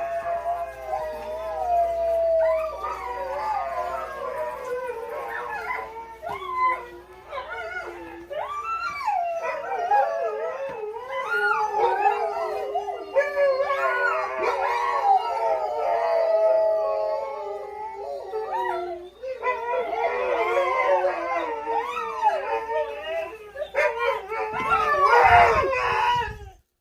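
Dogs howling: long, wavering howls that glide up and down in pitch, sometimes overlapping, with the loudest howling near the end.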